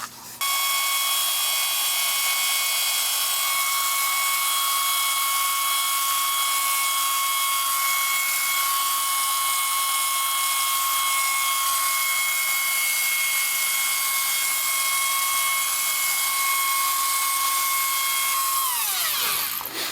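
Electric heat gun (paint remover gun) running with a steady whine and rush of air, then switched off near the end, its pitch falling as the fan spins down.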